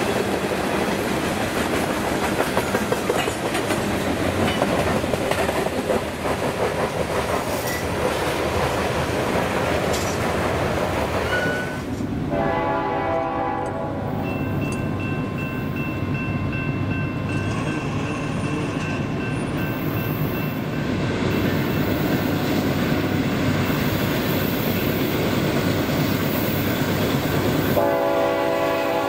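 A freight train rolling past at speed: an even rush of wheels and cars for about twelve seconds. Then a diesel locomotive's air horn sounds a chord for about two seconds, a low rumble follows, and the horn sounds again near the end.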